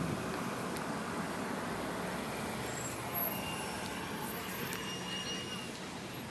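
Ocean surf washing steadily onto the shore, with a brief louder swell about three seconds in.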